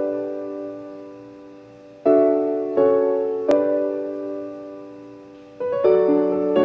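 Slow background piano music: chords struck a few at a time and left to ring and fade, with a longer pause before a new group of chords near the end.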